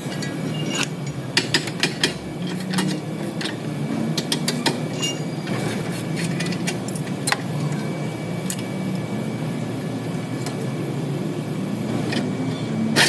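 A vehicle running with a steady low rumble and scattered clicks and knocks throughout.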